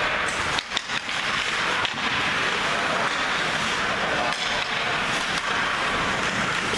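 Ice hockey being played: a steady clatter and scrape of skates, sticks and puck on the ice, with a few sharp knocks about a second in.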